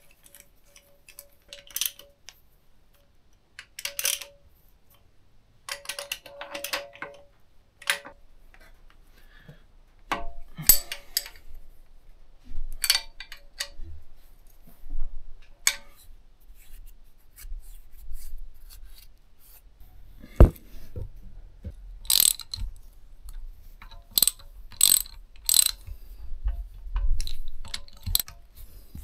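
Hand tools working bolts on a Kubota B7100 tractor's transmission housing: a ratchet wrench clicking in short runs, with metal tools tapping and knocking on the casing. One louder knock comes about twenty seconds in, and a few sharp metallic clicks follow it.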